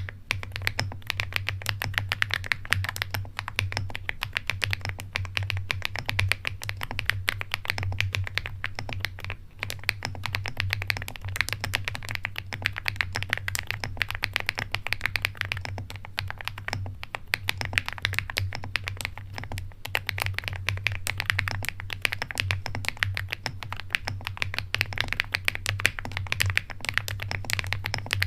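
Fast, continuous typing on a fully foamed custom mechanical keyboard with Keygeek Mirror Lake switches, the keystrokes clicking in rapid succession with a brief pause about nine seconds in. A steady low hum runs underneath.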